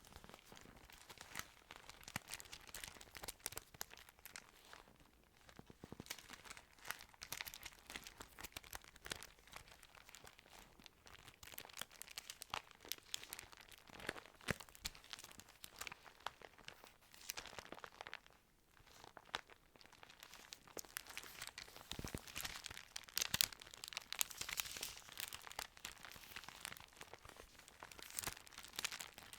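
Thin Bible pages crinkling and rustling close to the microphone as they are handled and turned, a steady run of small crackles and clicks.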